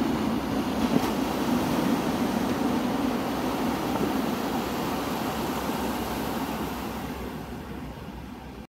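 An engine running steadily under wind noise, fading gradually in the last few seconds and cutting off suddenly near the end.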